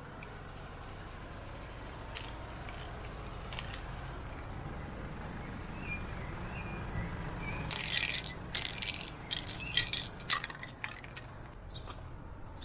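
Aerosol spray-paint can being shaken, its mixing ball rattling in an irregular run of sharp clicks for a few seconds in the second half, over a low steady background rumble.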